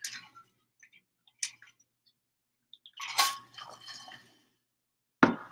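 A sip from an insulated tumbler, then scattered handling noises on a desk: a sharp tap about a second and a half in, the loudest rustle and knock about three seconds in, and another sharp knock near the end.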